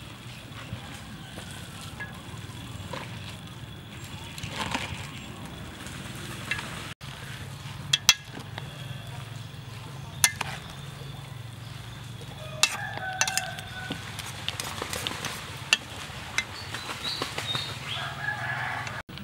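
Chopsticks tossing a wet glass-noodle salad in a stainless steel bowl, with several sharp clinks against the bowl. A rooster crows and chickens cluck in the background.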